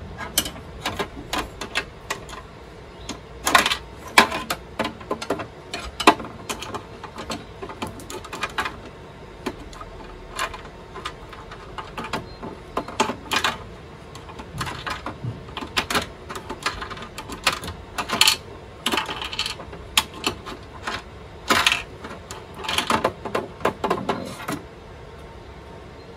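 Irregular metallic clicks, clinks and scrapes of a screwdriver working at a screw and knocking against the metal parts inside a table saw's blade housing, in uneven clusters.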